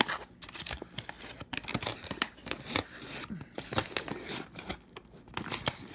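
Foil-lined backpacking meal pouch crinkling as it is held open, while a spoon scrapes and stirs the still-watery rehydrated rice, beans and chicken inside, making irregular crackles and clicks.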